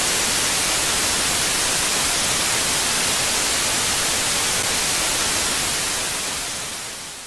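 Television static noise: a steady, even hiss that cuts in abruptly and fades away over the last second or two.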